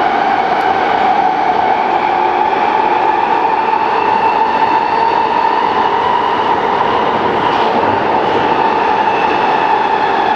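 Subway train running: a steady, loud rush of running noise with a strong high whine and overtones on top, the whine rising slightly in pitch over the first few seconds and then holding.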